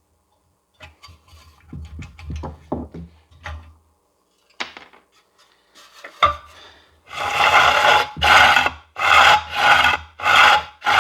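Handling clicks and knocks on the mower's Briggs recoil starter, then the pull cord yanked out and let rewind in quick repeated strokes, about six in the last four seconds. Each pull is a rasping rub of rope through the starter as the freshly repaired recoil is tested.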